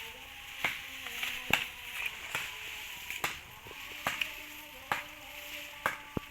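Repeated sharp knocks, roughly one a second and uneven in strength, over a steady high hiss.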